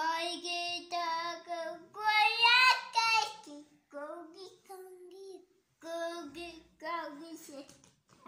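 A toddler singing wordlessly in a high voice: a string of held, wavering notes with short breaks, with a louder phrase that climbs in pitch about two seconds in.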